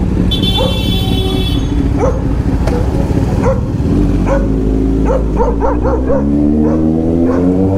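A dog barking repeatedly at a motorcycle as it pulls away, the bike's engine rising in pitch as it speeds up near the end. A brief shrill tone sounds about half a second in.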